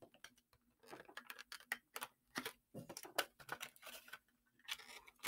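Faint, irregular clicks and scratches as Pokémon promo cards are worked loose from their packaging by hand, small ticks coming unevenly several times a second.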